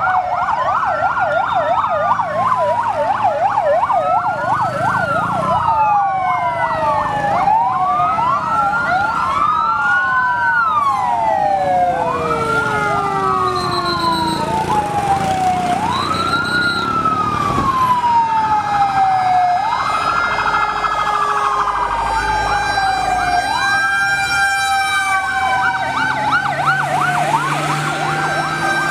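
Several fire engine sirens sounding together: a fast yelp at first, then overlapping wails that rise and fall every two to three seconds.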